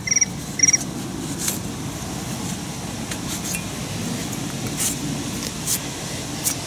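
A cloth rag rubbing and scrubbing over the metal of a disc-brake caliper bracket and its pad clips, with a few clicks as the metal is handled. A cricket chirps a few times in the first second.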